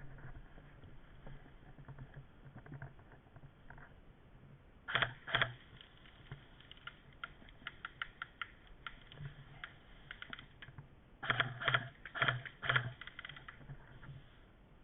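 Airsoft gun firing single shots as sharp clicks: two close together about five seconds in, then a quick run of about five some six seconds later, over light ticking and rustling.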